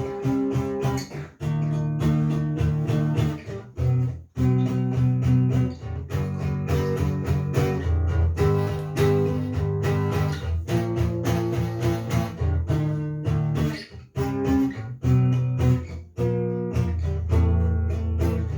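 Handmade acoustic guitar strummed through a run of chords, played to show off its full, loud sound. A last chord is left ringing near the end.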